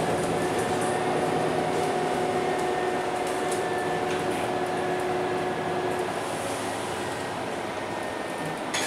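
Interior of a MAN NL323F A22 city bus on the move: the drivetrain's running hum and road noise, with a few light ticks from the cabin. A steady whine in the mix fades out about six seconds in and the noise eases slightly.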